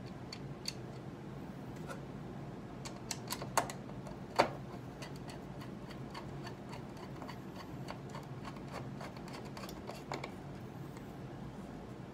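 Scattered small metal clicks and taps as screws are handled and driven with a hand screwdriver into the ski's threaded inserts to fasten a telemark binding toe piece, with a few sharper clicks about three to four and a half seconds in. A steady low hum runs underneath.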